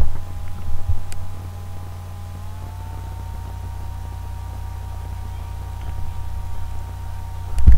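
Steady low electrical hum with faint thin high tones above it; the tones slide up a little in pitch about two and a half seconds in. A couple of soft clicks come in the first second.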